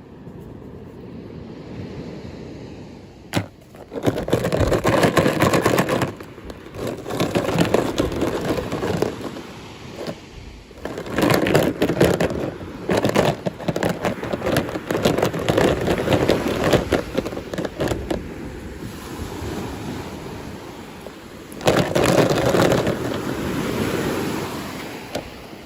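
Plastic toy packaging being handled and torn open: crinkling and rustling in several spells, with sharp clicks and crackles, and one sharp click about three and a half seconds in.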